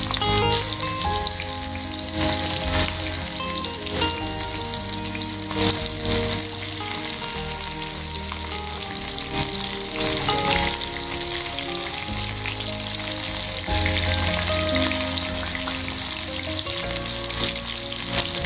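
Masala-coated fish pieces deep-frying in a wok of hot oil, with a steady sizzle from the oil bubbling around them.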